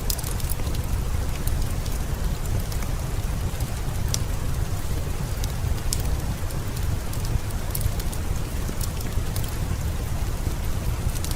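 Steady heavy rain, an even hiss over a strong low rumble, with scattered sharp clicks.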